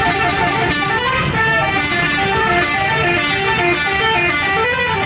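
Bus 'telolet' musical horn playing a long melody of quick stepped notes, several horn tones sounding together.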